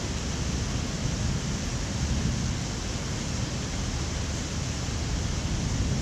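Heavy thunderstorm rain falling steadily: an even, unbroken rush of noise, deep as well as hissing, with no thunderclap.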